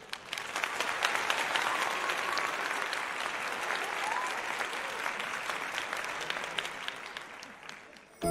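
Audience applauding: a dense patter of many hands clapping that swells up at the start and fades away near the end.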